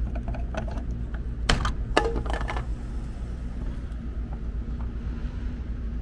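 Circuit breaker on a rooftop heat pump being handled and pushed in, with a few small clicks and two sharp clicks about one and a half and two seconds in, over a steady low rumble and faint hum. The breaker is being switched on to test whether the 24-volt low-voltage short is still there.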